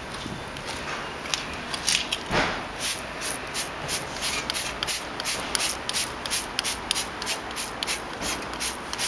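Trigger spray bottle of Sonax wheel cleaner squirting onto an alloy wheel in quick repeated pumps, about three a second, starting a few seconds in.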